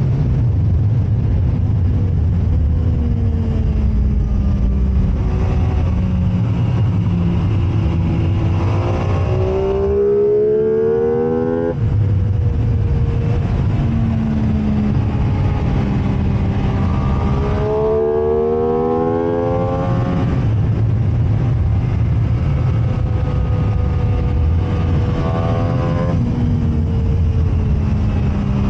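MV Agusta F3's inline three-cylinder engine at full racing load, its pitch climbing and dropping through the gears. Twice it revs up to a high whine that cuts off suddenly, about twelve seconds in and again about twenty seconds in, with a steady rush of noise underneath.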